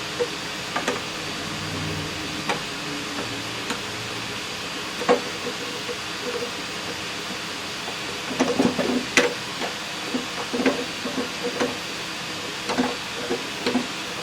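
Scattered light knocks and clicks of hand tools and wood trim being worked off an antique cash register, with quick runs of knocks in the second half, over a steady hiss.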